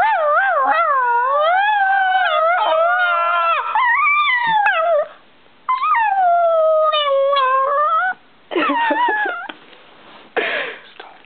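Dog howling: a long wavering howl that rises and falls in pitch, then a second one that slides downward, followed by a few shorter whining calls near the end.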